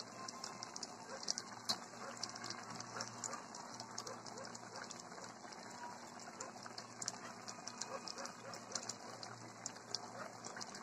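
Pot of catfish in coconut milk simmering on the stove: a faint, irregular crackle of small bubbles popping, over a low steady hum.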